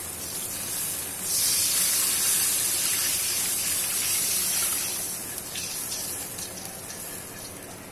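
Two cups of water poured into a hot wok of bubbling sauce, hissing and sizzling as it hits the hot pan. The hiss swells about a second and a half in, stays loud for a few seconds, then fades as the pour ends.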